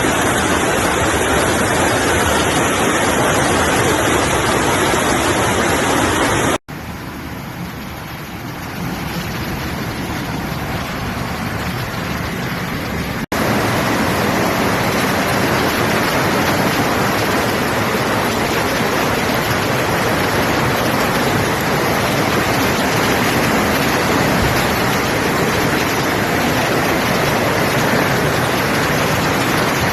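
Floodwater rushing past in a steady, loud wash of noise. About six seconds in it cuts abruptly to a quieter stretch, then cuts back to the full level some seven seconds later.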